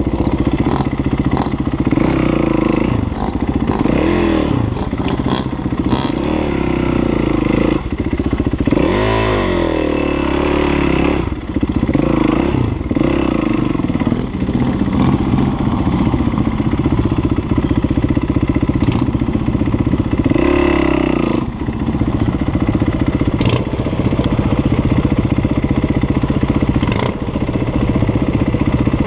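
Motorcycle engine running steadily under load, revving up and down in pitch several times, with a few sharp knocks and some clatter.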